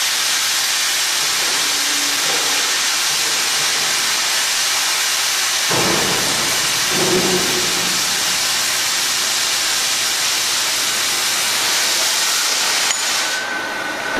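Steady, loud hiss of a CNC beam-cutting machine's torch cutting through a steel beam. A lower, fuller rush joins the hiss about six seconds in.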